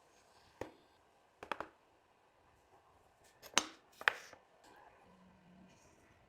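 Sharp taps and clicks of wood and hand tools being handled on a work surface: a single tap, then a quick cluster of three, then two louder knocks about half a second apart.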